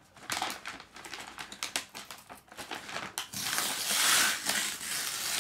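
A paper Lego parts bag being crinkled and torn open, with quick crackles at first and then a longer stretch of steady tearing from about three seconds in.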